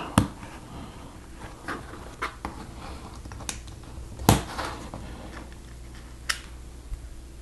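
LEGO plates being pressed onto a brick build: a handful of scattered, short plastic clicks and taps, the loudest a little past halfway.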